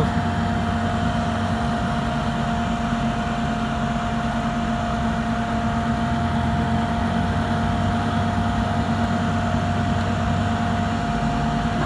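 Heavy vehicle's engine running steadily under load while it pulls a trailer up a steep hill on a forest track: a constant drone with a steady high tone through it.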